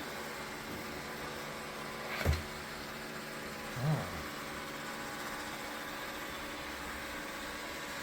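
Dreame L10s Ultra robot vacuum running in vacuum mode, a steady motor hum. A sharp knock comes a little over two seconds in, and a softer, lower thump about two seconds later.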